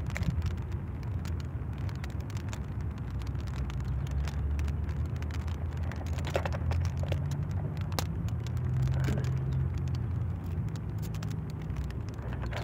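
Steady low rumble of wind buffeting the microphone, with scattered small clicks and snaps of dry twigs being handled and laid onto a small smoking fire.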